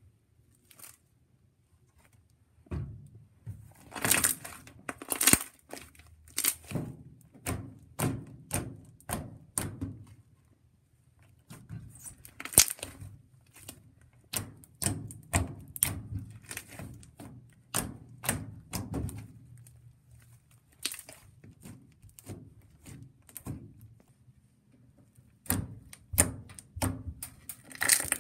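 Slime being handled, poked and squeezed, giving irregular wet clicks and pops in clusters with short pauses between them.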